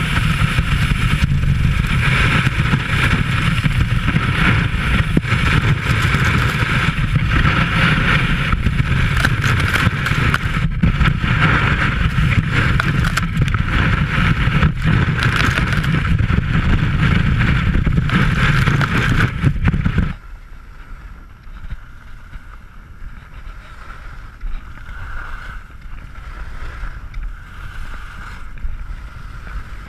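Skis sliding and scraping through soft snow, a loud rushing noise mixed with wind on the microphone; about twenty seconds in it drops abruptly to a much quieter hiss of skis running on a groomed run.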